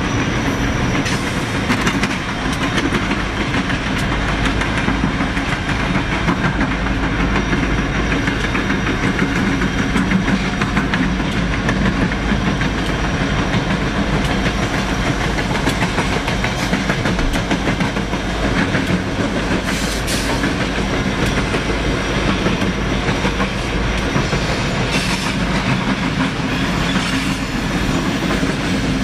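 Freight train rolling past steadily, its wheels clicking over rail joints above a continuous low rumble.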